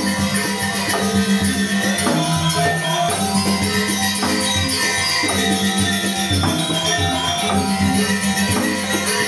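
Balinese gamelan music: ringing metal-keyed tones over a strong low tone that changes pitch every second or so, with fast, dense metallic ticking on top.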